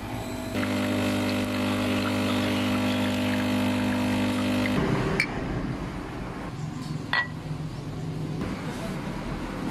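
Espresso machine's pump humming steadily for about four seconds while the shot pulls, then cutting off; a short glassy clink follows a couple of seconds later.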